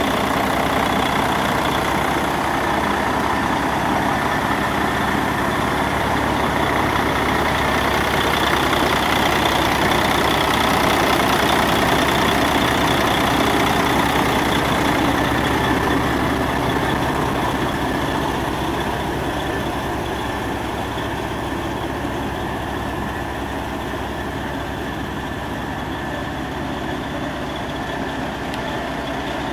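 Mercedes-Benz MBE4000 12.0-litre inline-six diesel of a 2003 Sterling A9500 semi truck idling steadily, growing a little quieter about two-thirds of the way through.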